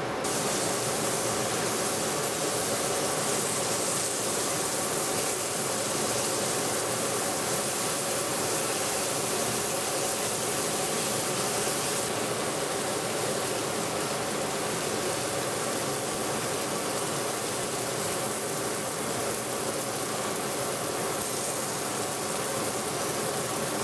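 Egg-and-flour-coated tilapia fillets sizzling in hot oil in a cast-iron skillet; the sizzle starts sharply as the first fillet goes into the pan and stays steady. A steady fan hum runs underneath.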